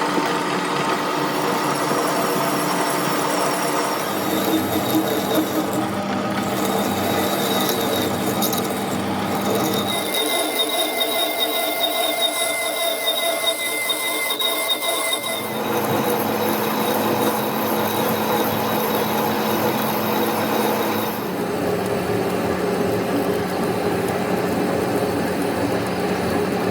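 Metal-working machinery running with a steady hum and a thin, high squeal; the sound changes abruptly three or four times.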